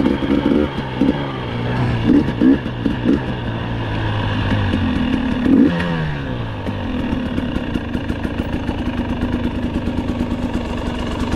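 Off-road vehicle engine running, revving up briefly just past halfway, then dropping in pitch and settling to a steady idle.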